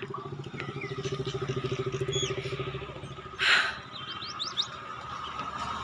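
A vehicle engine running with a rapid low pulsing, fading away about three seconds in, with birds chirping briefly over it. A short loud rush of noise comes about halfway through.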